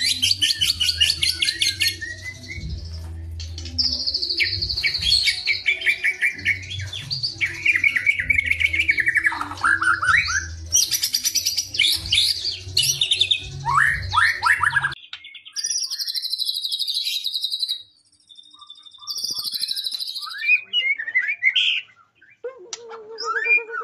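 White-rumped shamas singing: fast, varied strings of sharp whistles, trills and chattering phrases. The song is dense for about the first fifteen seconds, then turns into separate phrases with short pauses between them.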